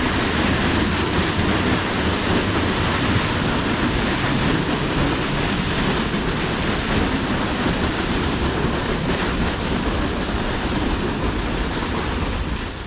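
Steady rushing noise of a waterfall and the creek in the canyon below, with an uneven low rumble of wind on the microphone.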